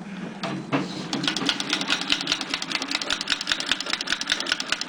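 Antique Singer treadle sewing machine, about 100 years old, running under foot power through its leather belt: a rapid, even clicking of the mechanism that settles into a steady rhythm about a second in.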